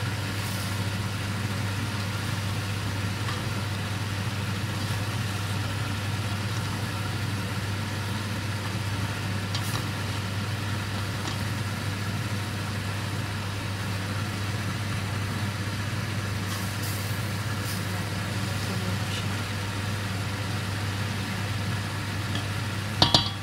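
A wooden spoon stirring pork belly and chopped beetroot in a stainless-steel pot over a steady low hum, with a few faint scrapes. Near the end come two sharp knocks of the spoon against the pot, the loudest sounds.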